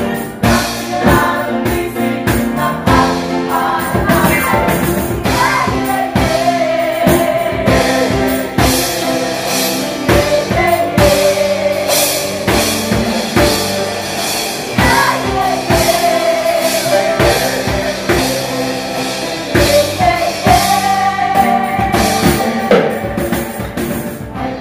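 Upbeat song with group singing over a steady drumbeat, loud and continuous, cutting off suddenly at the very end.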